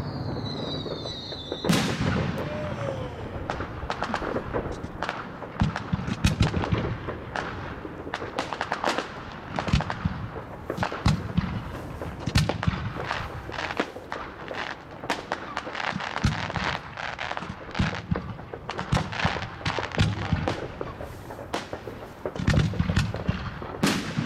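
Consumer firework batteries (cakes) firing: a dense string of bangs and crackling bursts, with a loud bang about two seconds in.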